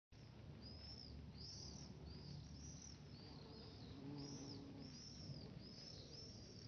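A small bird calling over and over, a series of short high chirps that rise and fall, about one to two a second, heard faintly over a low rumble.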